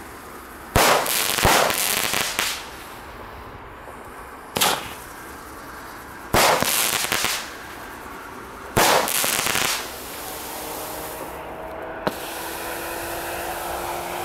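Homemade 32-shot fireworks cake firing its shots: four loud bursts a couple of seconds apart, each about a second long. After them comes a steadier, quieter hissing with one sharp crack near the end.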